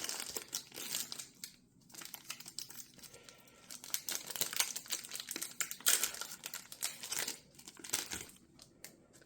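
The plastic wrapper of a Panini Mosaic football card pack crinkling and tearing as it is ripped open, in irregular bursts of rustling.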